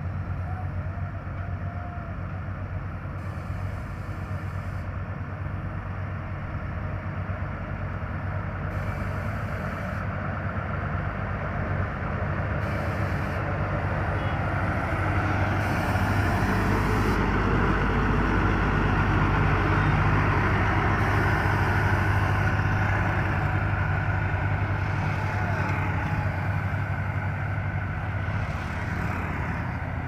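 Pneumatic tyre road roller running steadily while it compacts fresh asphalt, a continuous low engine drone. It grows louder about halfway through as the machine passes close, then eases a little near the end.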